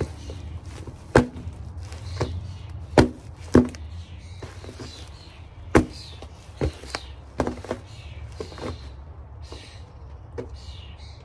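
Cardboard boxes being stomped and crushed underfoot by someone in mules: a string of sharp, uneven crunching impacts, the loudest about a second and three seconds in, with crackling cardboard between the stomps.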